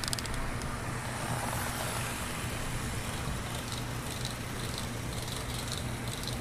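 Model steam locomotive running along the track: a steady electric motor hum and wheel-on-rail rumble, with light ticks of the wheels over the rails growing as it approaches.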